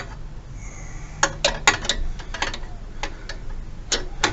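Sharp, irregular metallic clicks of a spanner and nut as the brake pedal's pivot nut is fitted and done up, about ten clicks in loose clusters.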